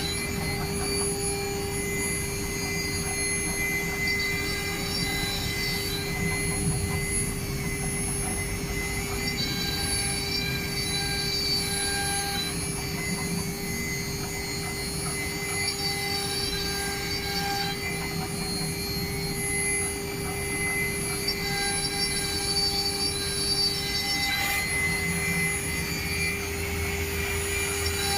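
CNC router cutting a design: the spindle runs with a steady whine while higher-pitched whines start and stop every second or two as the machine moves the cutter.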